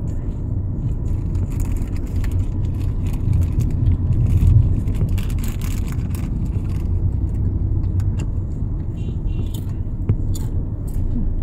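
Road noise inside a moving car's cabin: a steady low rumble from the engine and tyres, with scattered light clicks and rustles over it.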